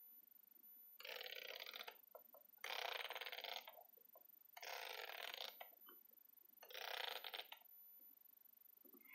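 Small wind-up music box being wound by its key: four turns, roughly two seconds apart, each a second-long run of fast ratchet clicks as the spring is tightened.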